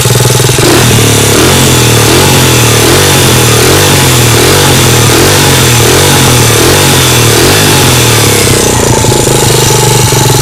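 Minimotard engine revved up and down repeatedly, about once a second, then settling to a steady idle near the end; the bike makes a noise its owner finds strange.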